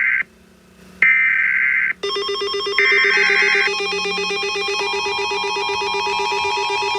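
Emergency Alert System SAME header tones: two-tone digital data bursts of about a second each, the end of one and then two more with short silent gaps between them. About two seconds in, a pulsing electronic alert tone starts under the last burst and keeps going.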